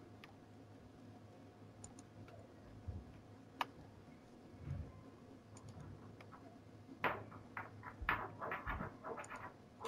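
Quiet room tone with a few faint sharp clicks and a soft low thump. About seven seconds in, quiet, uneven sounds with shifting pitch begin.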